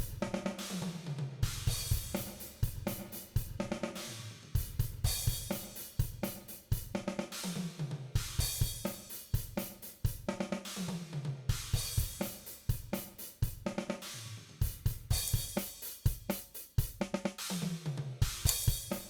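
Virtual acoustic drum kit from DrumGizmo stems playing a looped groove of kick, snare, hi-hat and cymbals that repeats about every three and a half seconds. The room-mic bleed runs through a Dragonfly room reverb whose settings are being auditioned.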